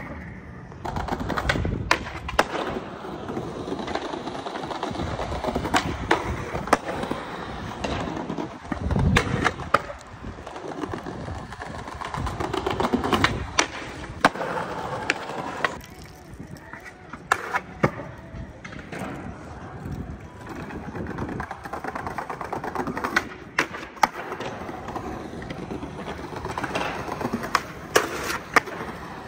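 Small hard wheels rolling over skatepark concrete, swelling and fading as riders pass, broken every few seconds by sharp clacks and slams of tricks and landings.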